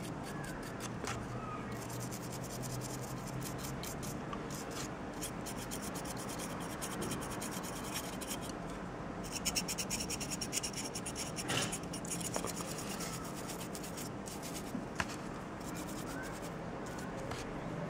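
Stiff paintbrush dry brushing across the scaled plastic carapace of a miniature: a scratchy rubbing of the bristles in runs of rapid back-and-forth strokes.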